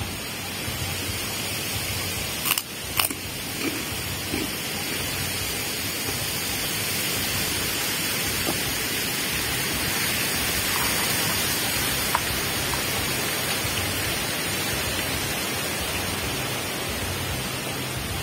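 Steady rushing of a flowing river, with two sharp clicks about two and a half to three seconds in from the spoon against the plastic food container.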